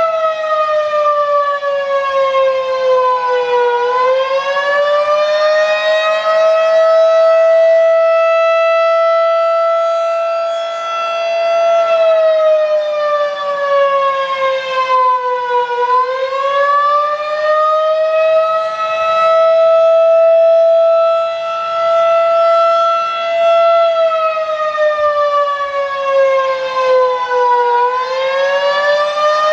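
Federal Signal 2001-DC electromechanical warning siren sounding a loud single tone with many overtones. Three times, about every twelve seconds, the pitch sags and then climbs back to the held note, and the loudness swells and fades between.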